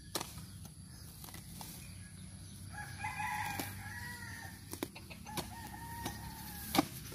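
A rooster crowing twice, the first call about three seconds in and a fainter one a couple of seconds later, with scattered sharp clicks in between.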